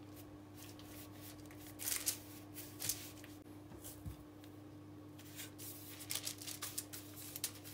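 Parchment paper rustling and crinkling on a metal baking tray as hands set down and press soft dough logs, in short irregular bursts that cluster near the middle and toward the end. A steady low hum runs underneath.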